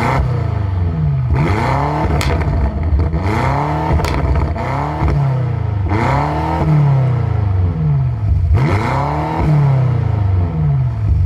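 2018 BMW M5 F90's twin-turbo V8 revving, its pitch rising and falling back about six times in a row. A few short sharp cracks come in between the revs.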